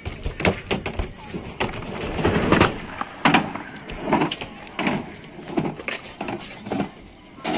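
Skatepark sounds: sharp clacks and knocks of skateboards on concrete and the ramp's coping, repeated irregularly, with people's voices in between.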